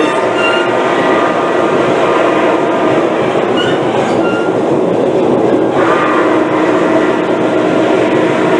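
Passenger train rolling along the track, heard from on board: a steady, loud rumble and rush of wheels on the rails.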